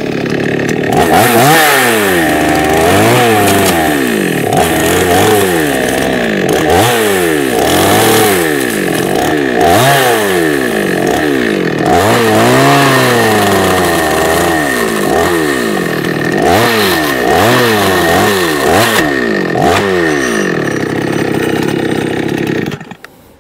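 Two-stroke chainsaw revved over and over, its engine speed rising and falling about once a second as the chain bites into the sheet steel of a car door. It cuts out shortly before the end.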